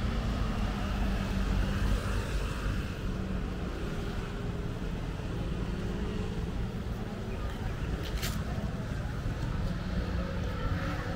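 Outdoor street ambience dominated by a steady low rumble of road traffic, with one short sharp click about eight seconds in.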